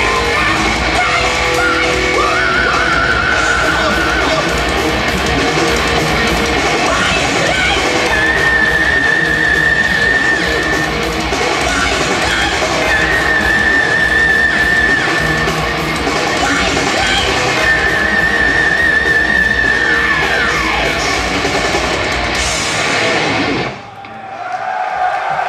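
Heavy metal band playing live through a PA: distorted electric guitars, drums and several long held high notes. The song stops abruptly near the end.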